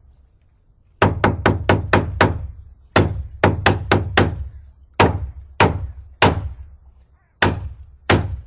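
Hammer blows, each a sharp knock that dies away quickly: a quick run of about seven, a second run of about six, then slower single strikes every half second to a second.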